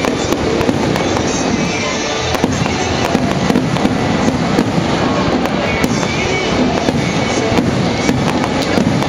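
Aerial fireworks display: shells bursting with many rapid cracks and pops, and music playing underneath.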